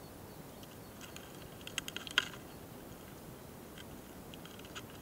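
Tiny sharp clicks and ticks from a close-miked mating pair of small longhorn beetles (hosotora-kamikiri) on a branch: a quick flurry of clicks about a second in, the loudest just past the middle, then a few scattered ticks near the end, over a faint steady hiss.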